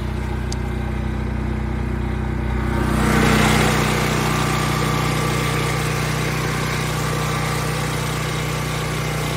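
Predator portable generator's single-cylinder gasoline engine running at a steady speed. About three seconds in it gets louder and harsher, with more hiss, and stays at that level.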